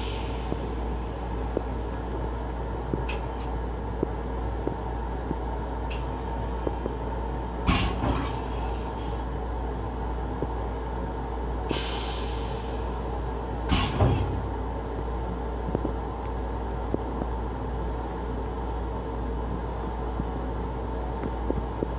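Steady low rumble of an LIRR M7 electric railcar heard inside its small restroom, with a few sharp knocks, the loudest about eight and fourteen seconds in, and a brief hiss about twelve seconds in.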